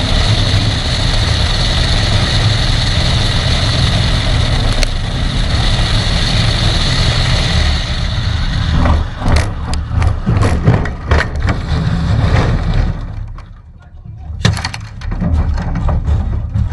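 Ultralight aircraft engine running loud and steady, then a stretch of irregular clattering knocks. The engine sound drops away suddenly near the end, followed by a single sharp knock and more rattling, as in a takeoff mishap.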